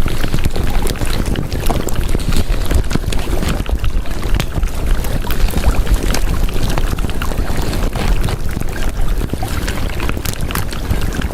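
Steady rushing noise like water or rain, peppered with small crackles: the masking sound laid over a subliminal recording.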